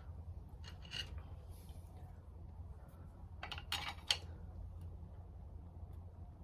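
Faint metallic clicks and scrapes of a motorcycle brake pad being worked into a tight-fitting rear brake caliper, with a short cluster of sharper clicks about three and a half seconds in.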